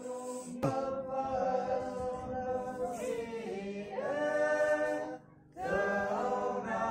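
A group of voices singing together as a choir, holding long notes, with a brief break about five seconds in.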